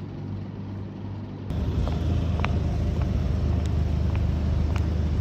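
Low steady rumble of a vehicle running, which steps up abruptly louder about a second and a half in, with a few faint clicks.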